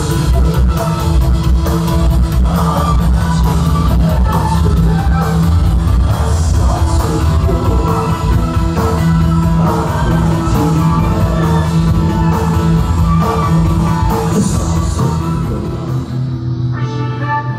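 Live rock band playing: electric guitar, drums with a steady beat, and singing. Near the end the music changes abruptly to a softer passage without the cymbals.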